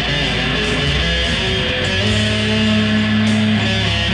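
Electric guitar played through an amplifier, with a long low note held from about two seconds in until near the end.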